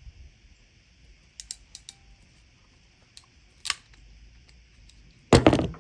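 Hard plastic clicking as an MC4 solar connector's nut is tightened with its plastic spanner tool: a few quick clicks, a single click, then a louder rattling clack near the end.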